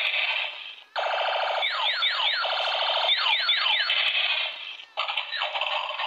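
Transforming RC toy car's built-in speaker playing electronic sound effects: a buzzy tone broken by several quick falling sweeps, with short breaks about a second in and near the end.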